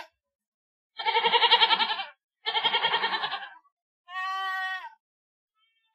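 Goat bleating three times: two long, quavering bleats, then a shorter, steadier one near the end, with silent gaps between.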